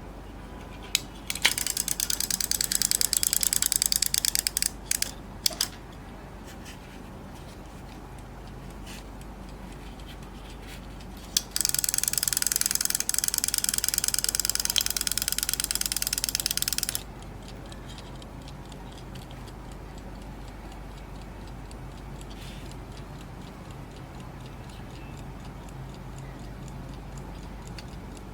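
Golden Time mechanical alarm clock ringing in two bursts, its hammer striking the bell rapidly. The first burst lasts about three seconds and trails off in a few stray strikes. The second, about five seconds in, is cut off abruptly. Between and after the bursts the movement ticks faintly.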